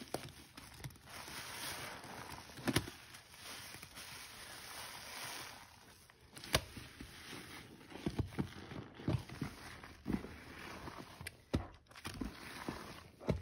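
Soapy, water-soaked sponges squeezed by hand. Sudsy water streams and hisses out for several seconds, then comes a run of short, sharp squelches in the second half.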